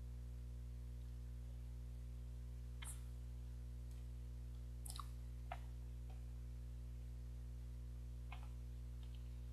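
A few soft swallowing clicks from someone drinking from a plastic cup, spread over several seconds, above a steady low hum.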